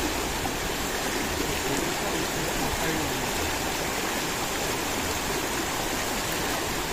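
Shallow river water running and rushing around stones, a steady wash of flowing water.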